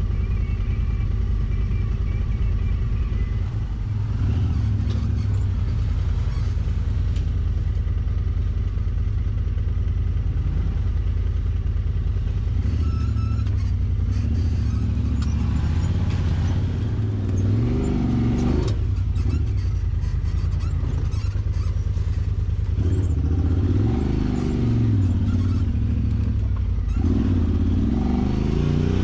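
Side-by-side UTV engine running on a trail ride, its revs climbing and dropping a few times in the second half, with some rattling and knocks around the middle.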